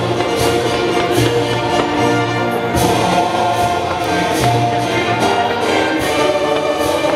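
Loud orchestral music with a choir, full held chords throughout, with short sharp hits every second or so.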